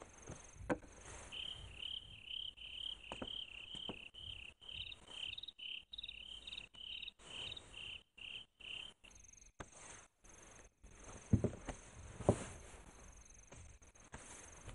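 Quiet ambience with a cricket chirping in an even rhythm, about three chirps a second, which stops after about nine seconds. Soft knocks and rustles run underneath, with two louder thumps later on.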